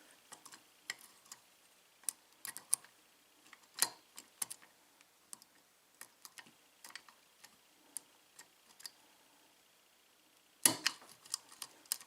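Irregular light metallic ticks and clicks of a lock pick probing the pin stacks of a 5-pin Marks lock under tension, with a louder cluster of clicks near the end.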